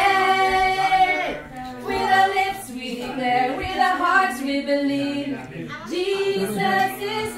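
Several women singing a song together without instruments, in long held phrases.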